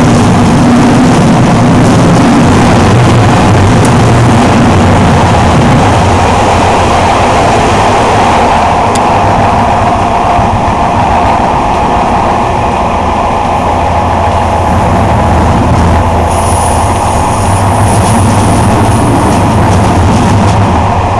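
Train running steadily along the line, heard from the driving cab: a loud, steady mix of motor hum and wheels on the rails. A thin high-pitched whine joins in about sixteen seconds in.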